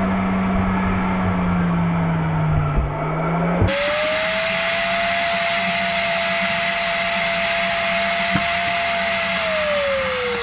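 Bauer 14-gallon 6 hp wet/dry shop vacuum running while sucking up water. Its motor tone sags in pitch a few seconds in, changes abruptly to a higher steady whine, and starts to fall in pitch near the end.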